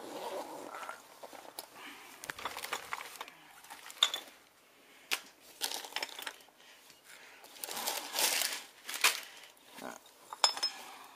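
Rummaging in a fabric backpack full of dug-up old glass bottles: the bag rustles, with scattered sharp clinks and knocks of glass against glass.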